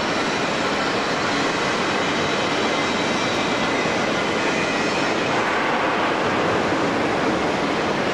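Steady mechanical rumble and hiss of a launch cradle carrying a 70-foot aluminium yacht hull, winched along the steel rails of a marine railway.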